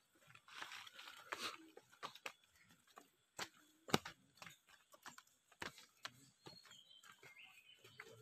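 Footsteps of a group walking down a dirt and stone forest path: irregular crunches and rustles with sharp clicks, the sharpest about four seconds in.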